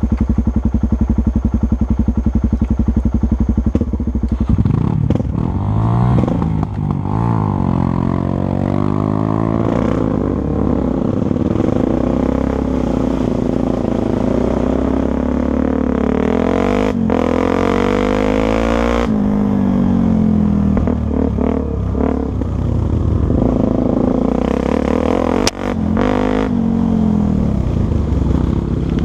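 Honda Tornado 250's single-cylinder four-stroke engine running, steady at idle for the first few seconds, then revved up and down again and again.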